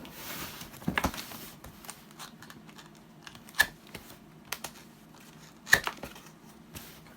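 Cardboard box being opened and its packaging handled: a tearing rush at the start, then crinkling and several sharp clicks and knocks.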